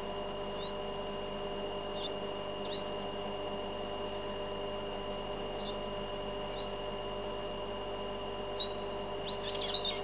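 Brown-headed parrot giving short, high, clear whistles every second or two, then a louder burst of shrill calls near the end, over a steady faint hum.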